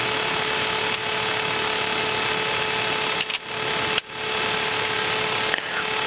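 Steady cockpit noise of an Embraer Legacy 600 jet taxiing: an even rushing hiss with a steady mid-pitched hum, dipping briefly about three and four seconds in.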